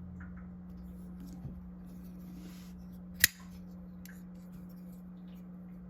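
WE Knives Highfin folding knife: its blade is worked to test the action of the pivot, which is still a little tight, giving one sharp click about halfway through and a few faint small ticks over a low steady hum.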